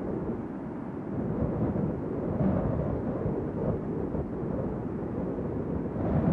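Wind buffeting the microphone on a moving boat: a low, irregular rumble with no clear tones.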